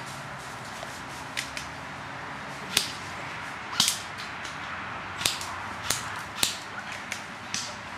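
Airsoft guns firing single shots: about ten sharp snaps at irregular intervals, some in quick pairs.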